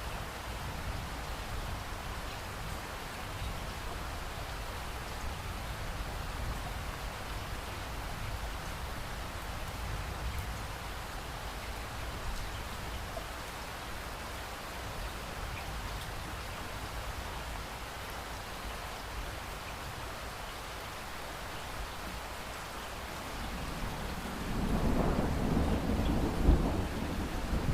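Steady rain falling, an even hiss, with a rumble of thunder rolling in near the end that is the loudest part.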